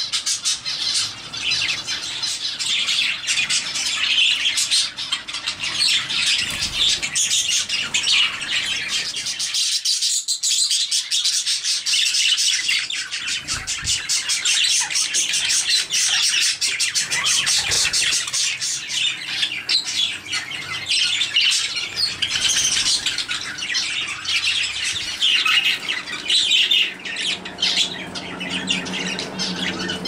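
Many small birds chirping and chattering together in a dense, continuous chorus.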